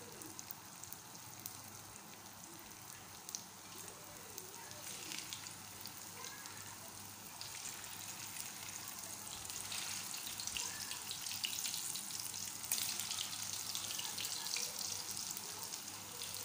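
Crumb-coated chicken pieces deep-frying in hot oil, sizzling and crackling. The sizzle grows louder about a third of the way in, as more pieces are dropped in one by one.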